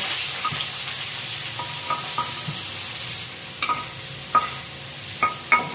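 Ground spice paste of garlic, shallot, ginger, turmeric, candlenut and chillies frying in hot oil in a wok, with a steady sizzle. A metal spatula stirs and knocks against the wok about eight times, and each knock rings briefly.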